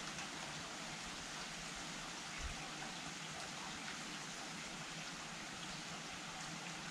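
Steady rain falling, a dense even hiss sprinkled with the patter of individual drops. A brief low thump sounds about two and a half seconds in.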